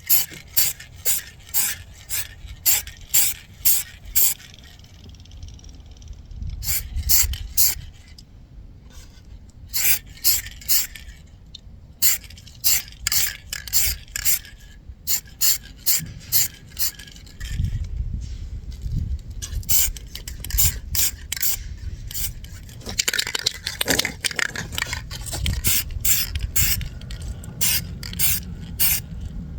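Aerosol spray paint can shaken in runs of quick strokes, about two to three a second, with pauses between runs. A spell of spray hiss comes about two-thirds of the way through.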